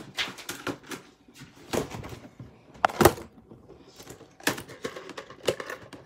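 Phone camera being handled and moved: irregular knocks, taps and rustles close to the microphone, the loudest knock about three seconds in.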